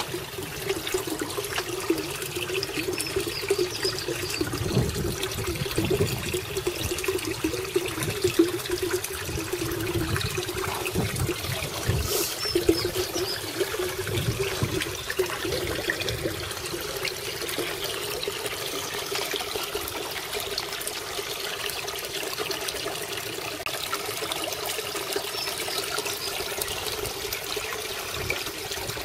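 Water pouring from the return pipes into a garden koi pond: a steady splashing trickle on the pond surface.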